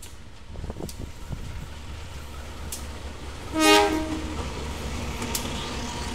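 CC 201 (GE U18C) diesel-electric locomotive running light, approaching slowly and passing close by with its engine running. It gives one short horn blast about three and a half seconds in, the loudest sound here.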